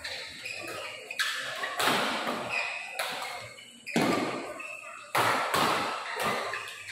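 Badminton rally: sharp racket strikes on the shuttlecock, four hard hits a second or so apart, each ringing out in a large hall, the loudest two in the second half, over the chatter of spectators' voices.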